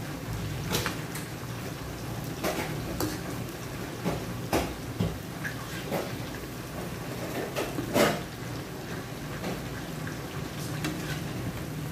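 Shrimp deep-frying in a wok of oil, a steady sizzle, with a metal slotted turner clinking and scraping against the wok now and then as it stirs them. The loudest clink comes about eight seconds in.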